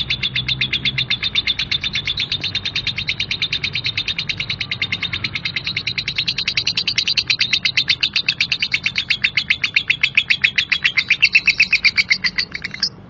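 Female lovebird giving a long unbroken 'ngekek' chatter: rapid, harsh, evenly repeated chirps at about ten a second, growing louder in the second half and stopping abruptly near the end.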